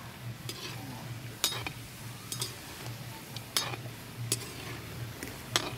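Perforated metal slotted spoon clinking and scraping against an aluminium kadai, stirring dal laddus as they deep-fry, with the frying oil sizzling underneath. The clinks come about seven times at irregular intervals.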